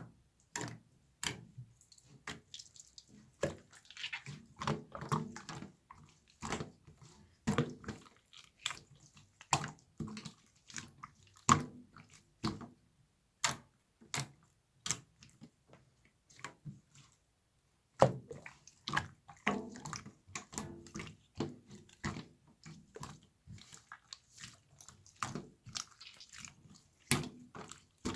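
Slime being squished and pressed by hand, making irregular wet clicks, pops and squelches, with a silent gap of about two seconds a little past halfway.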